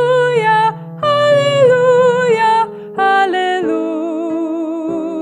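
A woman singing the closing "Haleluya, haleluya, haleluya" of a children's hymn over instrumental accompaniment. There are three sung phrases, and the last note is held long with vibrato.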